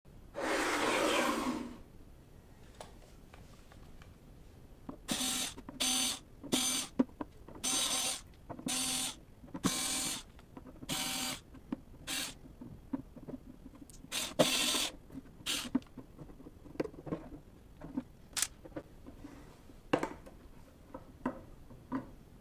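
Cordless electric screwdriver whirring in about ten short bursts as it backs the screws out of a hard drive's cover, after a short rush of noise at the start. Small clicks and taps of screws and the metal lid being handled follow.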